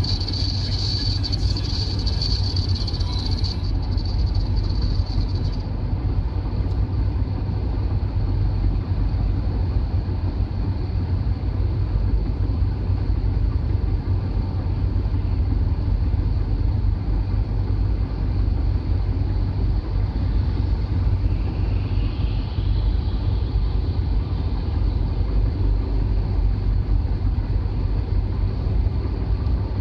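Steady road and engine noise heard inside a vehicle's cabin at motorway speed, mostly a low tyre-and-engine rumble. A faint high whine fades out about five seconds in.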